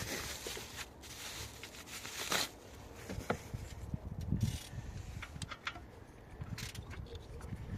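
Scattered clicks and short scrapes of hands handling plastic and metal parts in a car's engine bay while an ignition coil is swapped.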